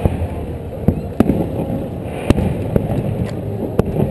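Aerial fireworks bursting: about seven sharp bangs at irregular intervals, the loudest a little past halfway through.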